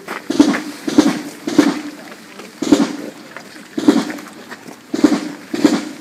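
Marching drum beaten in single loud strokes keeping a slow march, roughly one a second with a few quicker doubles, each stroke ringing on briefly.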